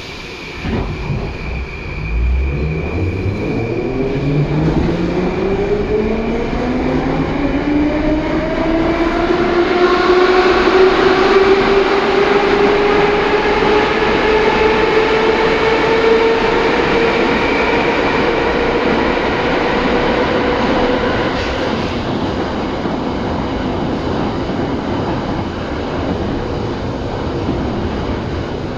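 Vintage Moscow metro car pulling away and accelerating: its traction motors give a whine that rises steadily in pitch for about fifteen seconds, then holds and slowly fades as the train runs at speed, over the steady rumble of wheels on rail. A knock comes right at the start.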